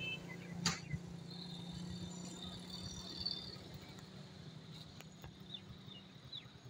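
Outdoor ambience with the steady low hum of a motor vehicle engine, fading away about six seconds in, and faint high chirps. A single sharp click comes just under a second in.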